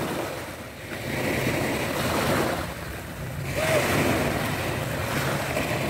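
Small waves breaking and washing up on a sandy beach, the surf swelling twice, a couple of seconds apart.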